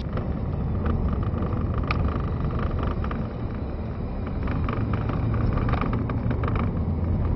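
Car driving, its engine and road noise heard from inside the cabin as a steady low rumble.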